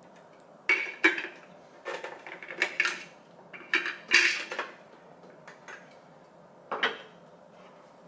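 A plastic blender wrench knocking and rattling against a clear plastic blender jar as it is fitted over the blade assembly on the jar's underside and turned. There is a run of sharp clattering knocks from about a second in to about four and a half seconds, then one more knock near seven seconds.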